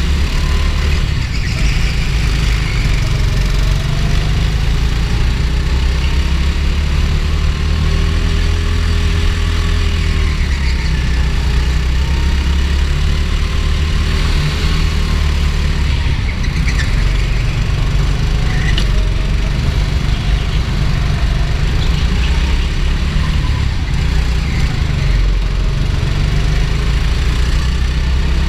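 Go-kart engine running, recorded close on the kart itself, with a heavy low rumble and a pitch that rises and falls as the kart speeds up and slows through the corners.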